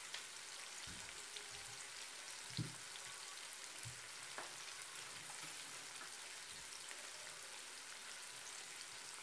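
Sliced onions and whole spices frying in oil in a nonstick pan: a steady, fairly quiet sizzle as the onions cook toward brown. A few faint low knocks come in the first four seconds.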